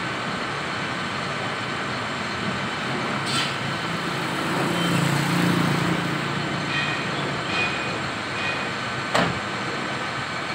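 Diesel engine of a Hino concrete mixer truck running, over steady street noise, swelling a little about halfway through; a sharp click sounds near the end.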